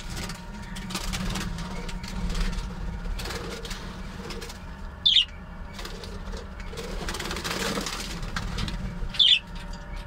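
Budgerigars fluttering and chirping. Two short, sharp, loud calls stand out, about five seconds in and again near the end.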